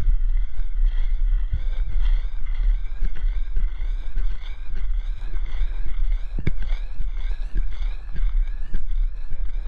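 Electric motor and gear whine of a radio-controlled car driving over grass, its pitch wavering up and down with the throttle. Heavy wind rumble on the microphone runs under it, with scattered knocks as it bumps along.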